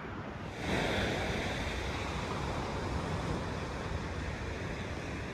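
Steady wind and surf noise on an open beach, stepping up louder about a second in and then holding even.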